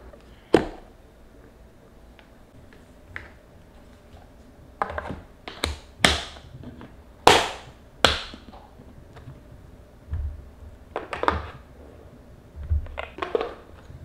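A series of sharp clicks and knocks, about ten, loudest in the middle: plastic lid clips and lids of stainless-steel and glass kimchi containers being handled, and the containers set down on a table.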